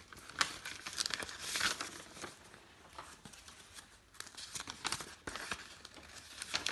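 Paper rustling and crinkling as a paper envelope and a folded sheet of letter paper are handled in the hands, in irregular crackles that thin out in the middle and pick up again toward the end.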